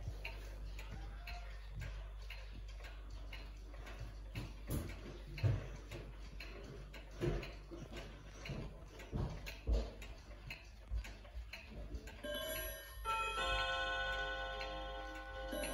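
Several mechanical wall clocks ticking. Near the end, the Urgos Bim Bam Bom wall clock's chime rods begin ringing the hour, and their tones hang on as they ring.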